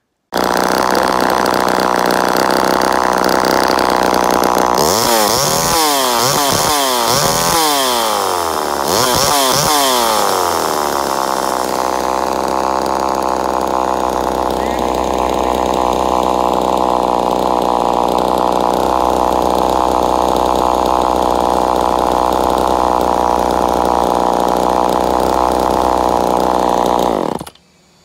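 1970s Homelite two-stroke chainsaw running. About five seconds in it is revved up and down several times, then it drops to a steady idle, running well.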